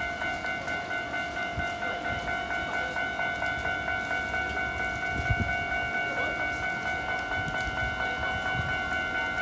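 Japanese railway level-crossing alarm ringing, a steady chiming tone pulsing quickly and evenly throughout.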